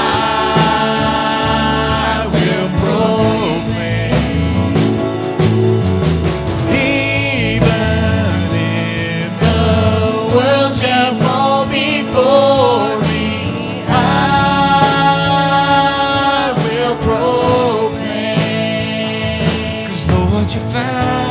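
Live worship band playing a slow song: a woman's lead vocal holding long, wavering notes with slides in pitch, over acoustic guitar, keyboard and bass.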